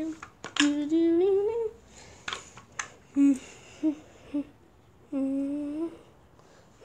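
A person humming a wordless tune with a few short notes and two longer held notes, one gliding upward. A few sharp knocks of the camera being handled come in between.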